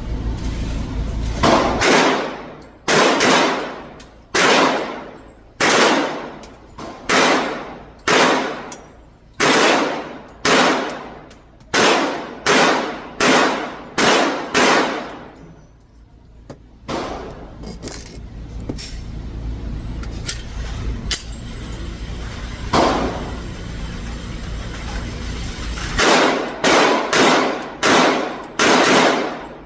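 Glock 30 pistol firing .45 ACP: about a dozen shots at roughly one a second, each ringing out with a long echo, then a lull with a single shot, and a quick string of about five shots near the end.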